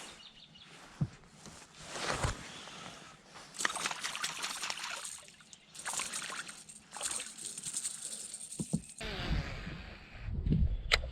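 Water splashing and trickling in irregular bursts, with a low rumble of handling noise and a sharp click near the end.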